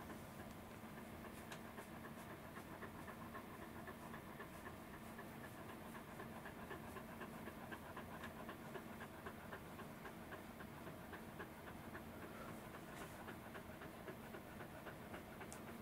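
Faint, fast, regular panting of a thick-coated Welsh corgi, breath after breath at an even pace; the dog looks hot under its bushy coat.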